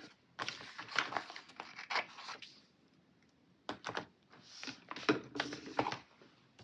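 Paper sticker sheet being handled and stickers peeled off: irregular rustling and crinkling in short spells, with a quiet pause about three seconds in.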